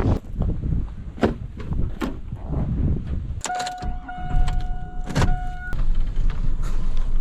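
Sounds in and around a car: a steady low rumble, several sharp clicks and knocks, and a steady whine lasting about two seconds midway.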